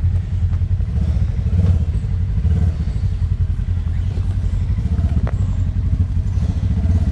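Side-by-side UTV engine running at low speed, a steady low rumble, while the machine crawls over rock ledges, with a faint knock about five seconds in.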